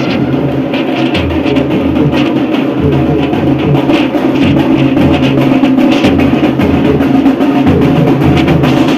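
Drums beaten loud and fast in a continuous rhythm, over a steady humming tone.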